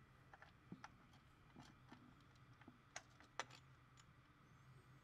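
Near silence broken by faint, irregular clicks, the loudest two about three seconds in, as hands work the bolts of a new water pump into the engine.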